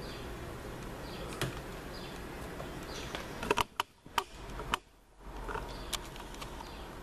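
Steady low background hiss, broken by a handful of sharp clicks and taps between about three and a half and five seconds in, where the hiss briefly drops out.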